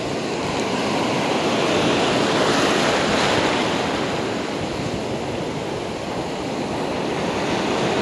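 Churning ocean surf: waves breaking and foamy water rushing over the shallows in a steady wash that swells about two seconds in, eases, and builds again near the end.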